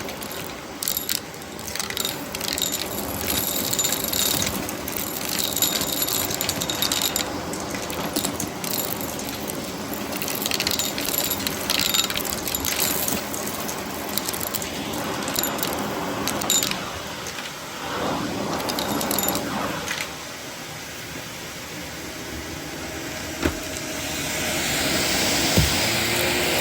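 Shark vacuum cleaner running while it picks up crunchy debris, with many small clicks and rattles of bits hitting the inside of the vacuum. A louder rushing noise builds near the end.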